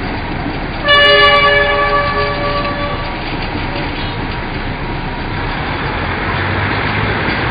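Train horn sounding one steady blast of about two seconds, starting about a second in, over the steady rumble of the train rolling slowly.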